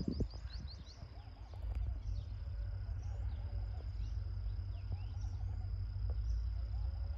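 A steady high insect drone with repeated short bird chirps, over a constant low rumble.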